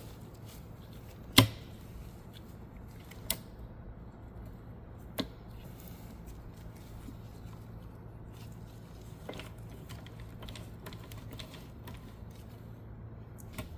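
A few sharp clicks and knocks of transmission parts being handled as the gear shaft stacks and shift forks are set into the case, the loudest about a second and a half in, then two more at roughly two-second intervals and fainter ones later, over a low steady hum.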